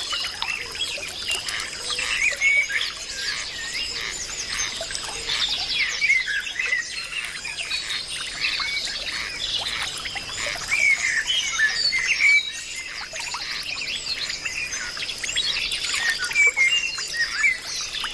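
Dense chorus of many small birds chirping and twittering together, overlapping quick calls throughout, over a steady high-pitched tone.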